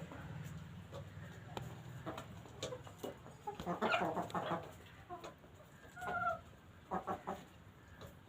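Chickens clucking while pecking at crunchy feed, with sharp pecking clicks scattered throughout. There is a burst of clucks about four seconds in and a short call about six seconds in.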